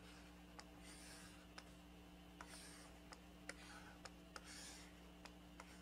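Near silence with the faint scratching strokes and scattered light taps of a stylus drawing on a graphics tablet, over a steady low electrical hum.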